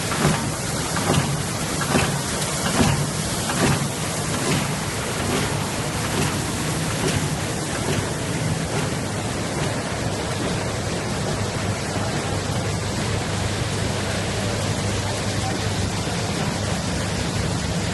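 Pet wet-food steam tunnel line running: a steady hiss over a low machine hum, with a regular knock a little more than once a second that fades out about seven seconds in.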